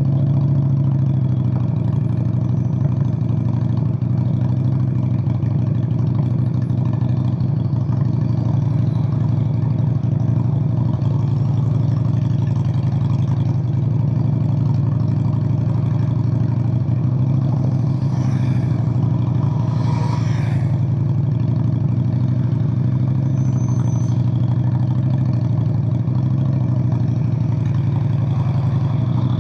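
1997 Honda Steed VLX 600 V-twin engine running steadily through straight pipes, a deep, even exhaust note with no revving.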